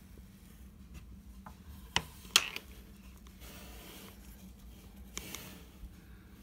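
Handling noise: two sharp clicks about two seconds in, then a stretch of soft rubbing and a few lighter clicks near the end.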